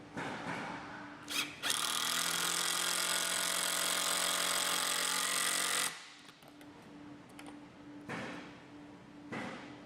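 Power drill driving screws into the cedar log dowel joints: a few short trigger bursts, then a steady run of about four seconds that stops suddenly, followed by two brief softer bursts.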